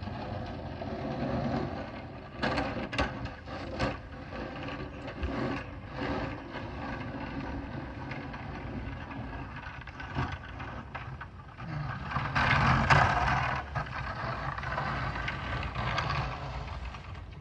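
Pickup truck with a front snow plow blade pushing snow along the street: its engine running steadily. A few sharp knocks come about three seconds in, and there is a louder stretch about twelve to fourteen seconds in.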